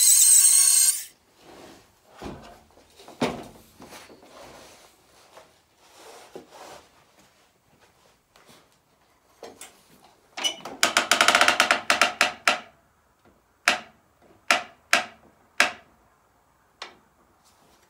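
A sawmill's saw runs and then cuts off about a second in. It is followed by scattered wooden knocks and clatter as sawn boards are handled, a rapid rattle about ten seconds in, and four sharp knocks.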